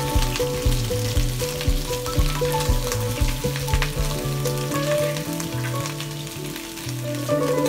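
Sliced wild boar meat sizzling as it fries in a hot wok, over background music with held notes and a steady beat.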